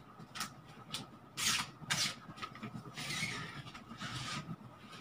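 Hands rubbing cubes of cold butter into flour in a metal bowl, working them together for pie crust: a few short dry rustles, then a longer one about three seconds in.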